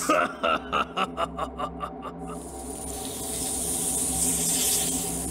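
A laughing voice: a run of about nine quick "ha" pulses that fade out over roughly two seconds, followed by a steady hiss.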